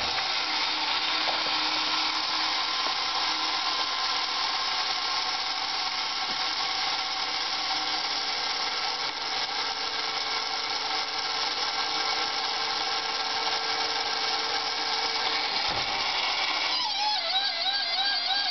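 Vintage Nomura tin battery-operated DC-9 airliner toy running: its battery motor and gear mechanism give a steady whirring hiss. Near the end, a warbling tone starts, its pitch wobbling up and down about twice a second.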